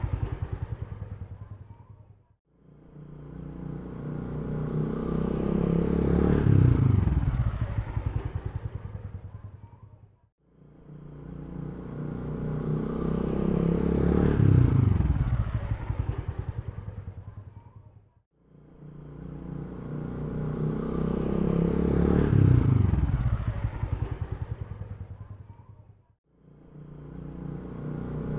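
A motor vehicle engine passing by, rising as it approaches and falling in pitch and level as it goes away. The same pass repeats about every eight seconds, with a sharp cut to near silence between passes.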